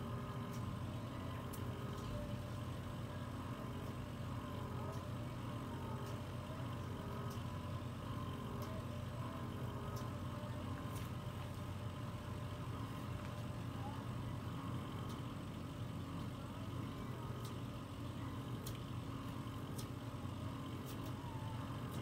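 Microdermabrasion machine running with a steady low hum from its vacuum suction pump, with scattered faint ticks.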